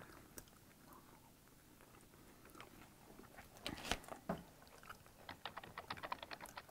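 Faint chewing of a mouthful of crappie sandwich, with a sharper bite about four seconds in and a run of quick small clicks near the end.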